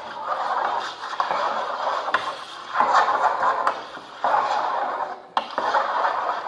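Electronically amplified scratching and rubbing of drawing marks being made on paper across a table, in a run of strokes each about a second long with short breaks between.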